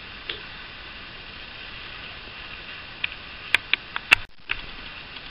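Steady background hiss with a cluster of four or five sharp clicks about three to four seconds in: small scissors snipping off the surplus thread end at the sewing machine's bobbin winder.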